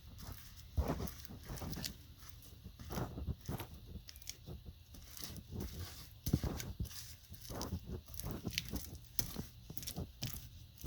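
Paintbrush working fiberglass resin into fiberglass cloth: irregular scratchy brush strokes and dabs with occasional light knocks.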